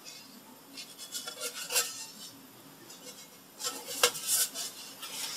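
Handling noise as the radio's wooden cabinet panel is moved: light scrapes and clinks of wood against metal, in two clusters, about a second in and again near four seconds in.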